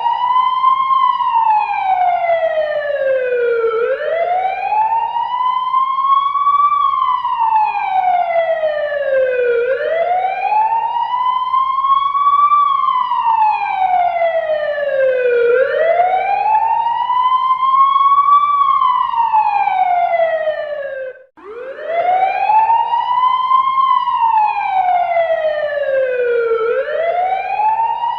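Fire engine siren wailing in slow cycles of about six seconds each: a quick rise in pitch, then a longer, steady fall. It cuts out for an instant about two-thirds of the way through and starts its rise again, over a faint low hum.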